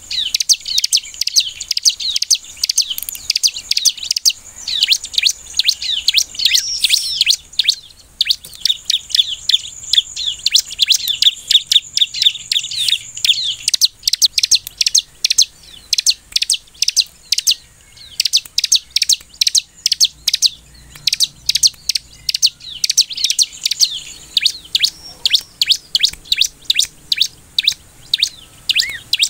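Bar-winged prinia (ciblek) calling: a dense, fast run of high chirps, changing about halfway to a steady string of separate sharp chirps, several a second.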